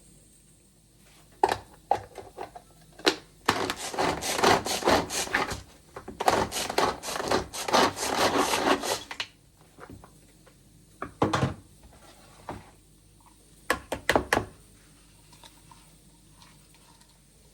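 Rapid, even strokes on a wooden surface in two runs of about two and three seconds, with a few separate knocks before and after.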